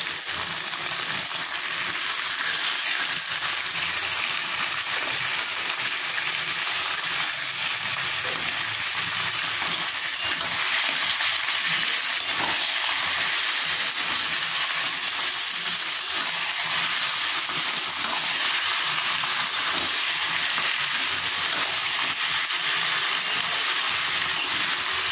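Raw mutton pieces sizzling in hot mustard oil with fried onions in a kadai, with a steady frying hiss. A metal spatula stirs them, knocking faintly against the pan now and then.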